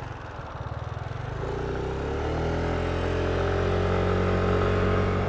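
Motorbike engine pulling away: low and uneven at first, then rising in pitch and getting louder about a second in as the bike accelerates, and settling into a steady run.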